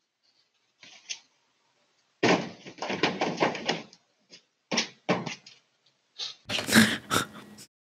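A deer thumping and clattering in the bed of a pickup truck as it lands and scrambles, a dense run of knocks about two seconds in, with a few more knocks a couple of seconds later.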